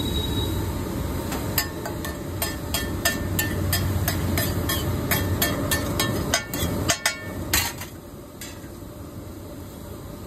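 Metal spatula clanking against a griddle as eggs are chopped and mixed, about three strikes a second, over a steady sizzle of frying; the sizzle drops away about eight seconds in.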